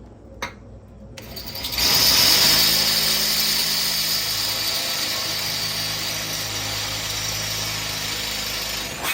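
Power drill starting up about a second in and running steadily at high speed, its bit boring a hole to 1/4 inch through the steel lid of a Weber Smoky Mountain smoker, then stopping abruptly near the end.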